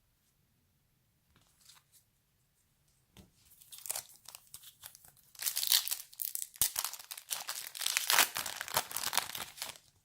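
Trading card pack wrapper being torn open and crinkled by hand: faint at first, starting about three seconds in and turning into dense, continuous crinkling from about five seconds in.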